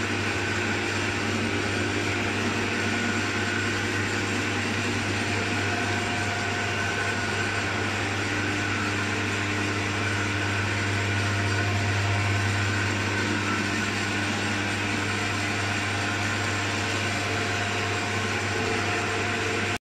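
Eagle Star lathe running steadily with a low motor hum, spinning a combine harvester's auger shaft while its bearing seat is turned down to size.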